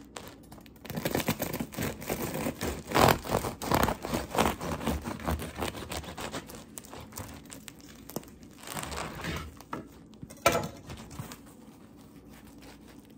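A knife sawing through the crisp crust of a freshly baked sourdough loaf: rapid crunching and crackling, loudest a few seconds in, with a single sharper crack about ten seconds in.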